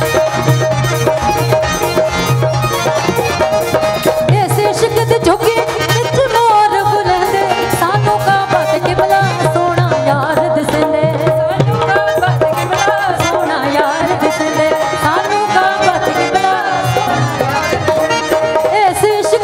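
Live tabla and keyboard accompaniment to a Punjabi Sufi song: the tabla beats a fast, steady rhythm under a held keyboard tone, and a wavering melody line comes in about four seconds in.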